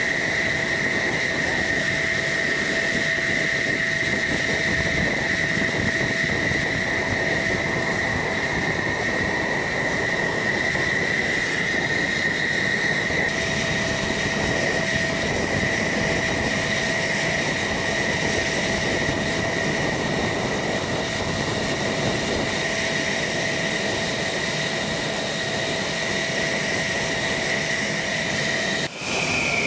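F-16 fighter jet's engine running at idle on the ground: a steady high-pitched turbine whine over a constant rush, with a brief dip near the end.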